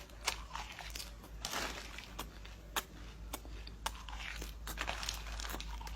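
Someone biting and chewing crunchy insects close to the microphone: a sharp crunch roughly every half second to second over a softer chewing noise.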